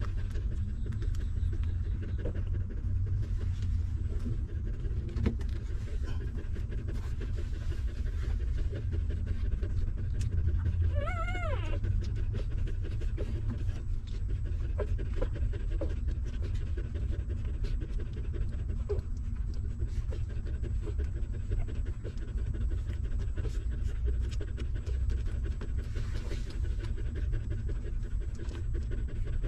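Mother dog panting steadily over a low, even rumble while her newborn puppies nurse. About eleven seconds in, a puppy gives one short, wavering whimper.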